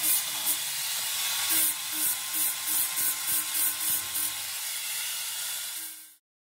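Angle grinder with a flap disc grinding down weld metal on a metal armour knee cop: a steady hiss over a motor whine that wavers slightly in pitch as the disc is worked against the metal. The sound cuts off abruptly about six seconds in.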